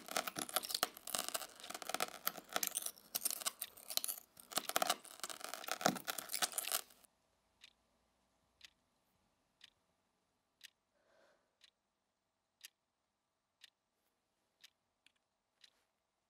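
Dense crackling, crunching noise that cuts off suddenly about seven seconds in, leaving a clock ticking about once a second.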